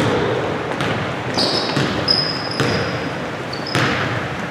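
Basketball bouncing on a hardwood gym floor in irregular thuds, with short high sneaker squeaks from players running on the court.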